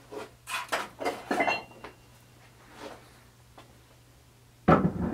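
Metal clinks and knocks as an Eaton Detroit Truetrac differential carrier with its bolted-on ring gear is lifted off a steel support cylinder and handled at a bench vise. There are a few light knocks in the first second and a half, then a louder cluster of clanks near the end, over a steady low hum.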